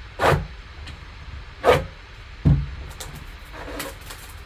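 A sealed white cardboard box being handled with gloved hands: two short scraping swishes as it is picked up and turned over, then a dull thump about two and a half seconds in, followed by faint rustling.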